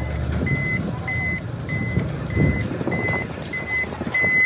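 A vehicle's reversing or travel alarm beeping at a steady high pitch, just under two beeps a second. A low engine rumble underneath drops away about half a second in, and a few knocks follow near the middle.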